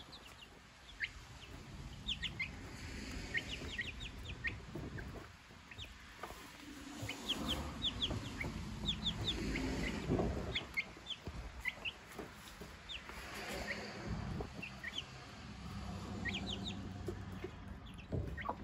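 Silkie chicks peeping: many short, high, falling chirps, singly and in quick runs, under the silkie hen's low clucking.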